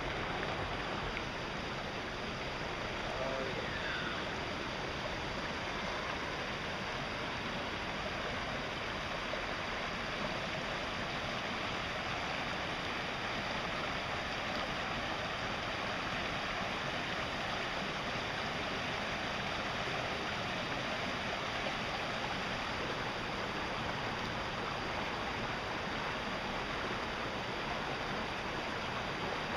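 Steady rushing of water pouring over a small river waterfall.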